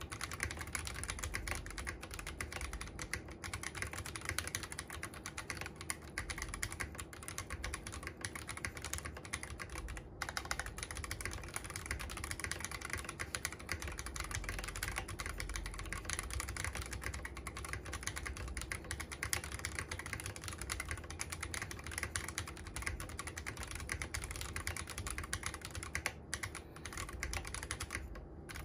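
Continuous fast typing on the reassembled Akko MOD001 v2 mechanical keyboard, a dense run of key clicks, as a sound test. The typing breaks off briefly about ten seconds in and again near the end.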